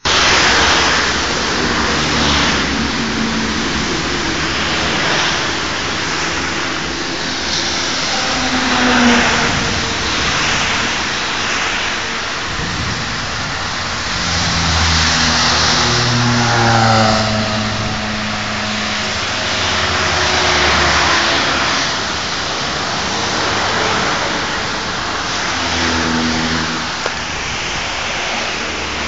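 Nissan X-Trail driving on a rain-soaked road: a steady loud hiss of rain and tyre spray, with the engine note rising and falling now and then.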